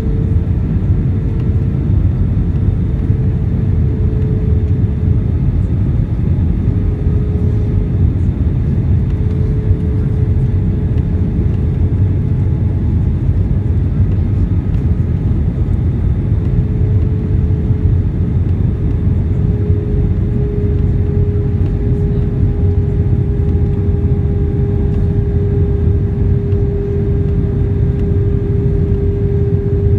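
Cabin noise inside an Airbus A319-131 in flight: a steady low rumble of airflow and engines, with a steady whine from the IAE V2500 turbofan engines whose pitch drifts slightly.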